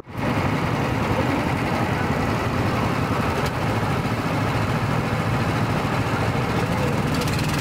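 Small go-kart engines running steadily, a dense even engine noise.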